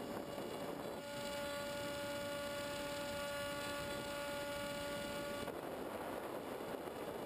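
Onboard sound of a Multiplex EasyStar model plane in flight: a steady rush of airflow over the camera, with a steady electric motor and propeller whine that starts about a second in and stops about two seconds before the end.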